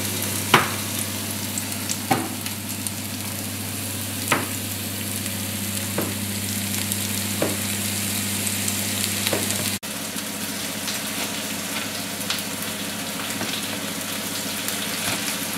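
Sliced onion sizzling steadily in hot oil in a frying pan, with a sharp tap every second or two over the first ten seconds. A low hum under the sizzle stops abruptly about ten seconds in, and the sizzle goes on.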